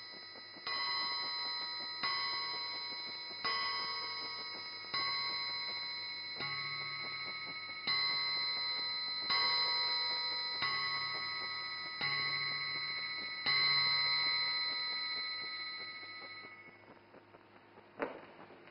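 Ornate striking clock sounding midnight: a bell-like chime struck about every second and a half, ten strikes, each ringing and fading, the last dying away. A short sharp knock comes near the end.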